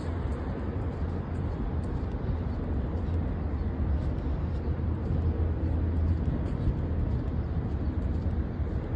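Steady open-air background noise: a low, fluctuating rumble of wind on the phone's microphone over the wash of distant traffic.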